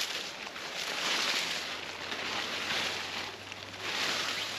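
Rustling of a camouflage tarp and dry leaf litter as it is handled and adjusted, in uneven swells about once a second.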